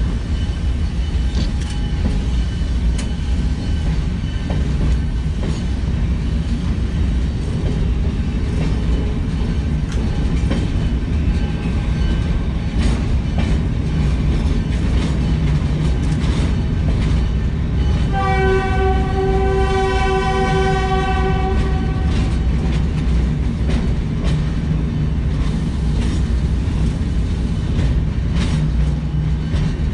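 Pioneer Valley Railroad train rolling slowly along street-running track, heard from the caboose platform: a steady low rumble of wheels on rail with scattered clicks. A single train horn blast lasting about four seconds comes about two-thirds of the way in.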